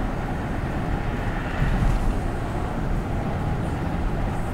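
Wind rushing over the microphone of a camera on a bicycle ridden fast in a group, a steady low rumble that swells briefly a little under two seconds in.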